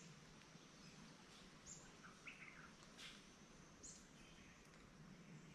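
Near silence with a few faint, short bird chirps scattered through it, some high-pitched and a couple lower about two seconds in.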